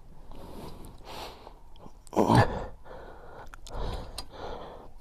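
Hand work on a motorcycle's front brake caliper: small clicks, taps and scrapes of tools and brake-pad parts being handled, with one louder, harsher noise about two seconds in.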